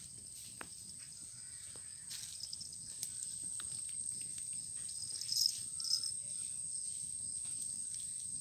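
Insects singing a steady high-pitched drone, with scattered faint crackles from a wood fire burning under a bamboo cooking tube. Two brief louder chirps come about five and six seconds in.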